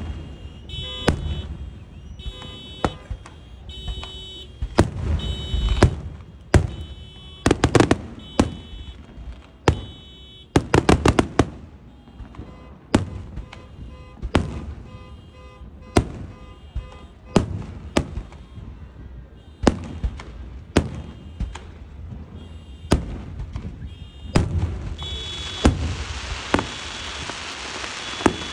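Consumer fireworks going off in quick succession: sharp bangs every second or so, with rapid crackling clusters around eight and eleven seconds in. A car alarm sounds in repeated beeping tones, set off by the blasts. Near the end a steady hiss sets in.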